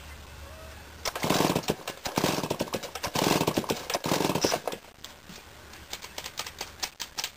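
Homelite Zip 77cc two-stroke chainsaw being pull-started: four hard pulls on the starter cord, each cranking the engine in a rapid clatter of pops, then scattered ticks as it fails to catch for lack of fuel prime.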